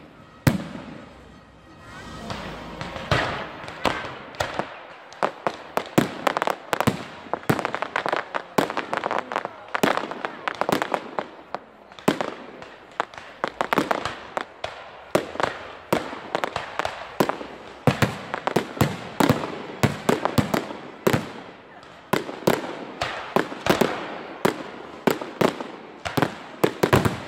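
Aerial fireworks display: shells bursting in quick succession, several sharp bangs a second mixed with dense crackle. The bangs build up after a quieter first couple of seconds.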